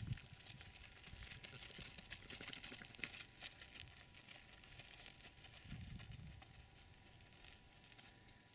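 Near-silent outdoor ambience: faint crackling and rustling, with a soft low rumble about six seconds in and a faint steady tone underneath.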